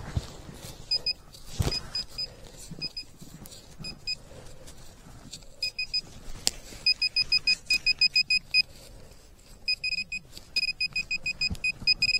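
Handheld metal-detecting pinpointer beeping with short, high beeps at one pitch, at times in rapid runs, as it is probed through dug soil and picks up a metal target. A few knocks from the digging come in between.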